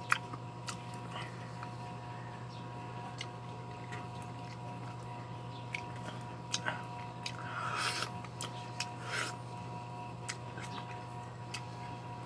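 Wet chewing and biting of watermelon close to the microphone: scattered small clicks, with a few longer squishy bites about seven to nine seconds in. A steady hum runs underneath.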